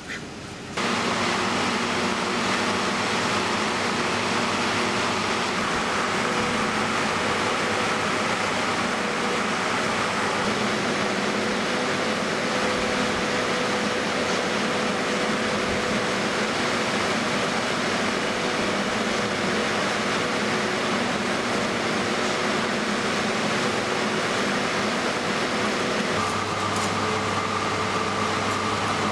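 Steady machine whir and hum with a few constant tones, the running machinery of a caged-duck fattening shed. It sets in suddenly about a second in, and its pitch pattern shifts near the end.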